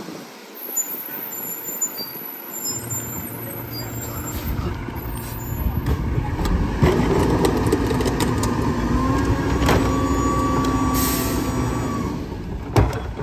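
A 1997 Mack RD rear-loader garbage truck's engine revs up under load as the packer's hydraulics cycle. A steady whine comes in about seven seconds in and rises slightly in pitch, with metal clanks from the hopper and louder knocks near the end.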